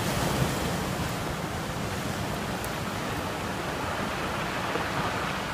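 Steady rush of sea surf breaking on the shore.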